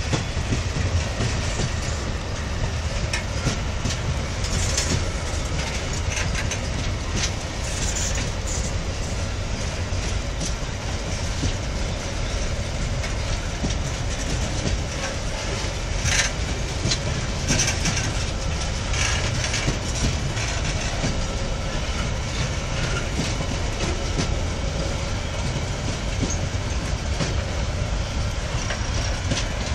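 Empty freight gondola wagons rolling past close by: a steady low rumble of steel wheels on rail, with scattered clanks and clicks from the wheels and bogies.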